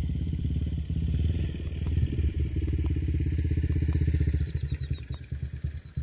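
Motorcycle engine idling with a steady low putter, which grows weaker and less even about five seconds in.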